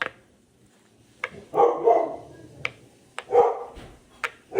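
A dog barking several times in short bursts.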